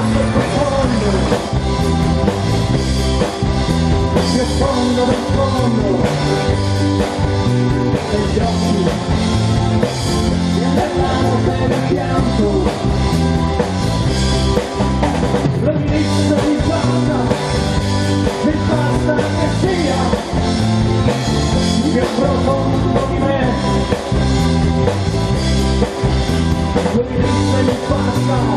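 Live rock band playing through a PA: drum kit keeping a steady beat under electric bass and guitars, with a voice singing.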